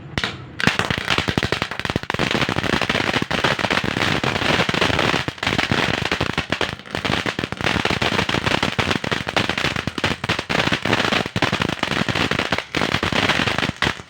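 Crackling fountain firework burning: a dense, continuous crackle of rapid small pops that starts about half a second in and keeps going.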